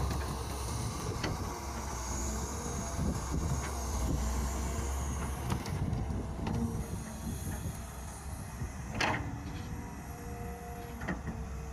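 Kobelco hydraulic excavator working as it digs and scoops soil with its bucket: a steady low engine drone with occasional knocks and clanks, the sharpest about nine seconds in.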